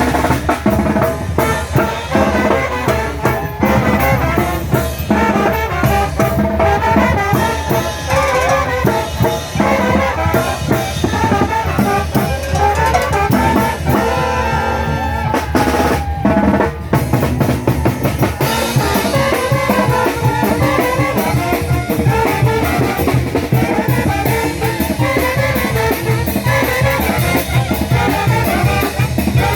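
A Mexican banda, a brass band with drums, playing: brass over a steady beat of bass drum and snare.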